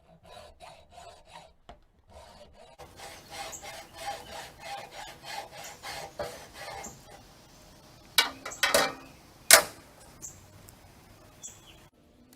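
Hacksaw cutting through the ground spike of a garden bed stacking stake, in steady back-and-forth strokes about three a second, trimming it for hard-surface installation. A few loud knocks follow near the end, the loudest about nine and a half seconds in.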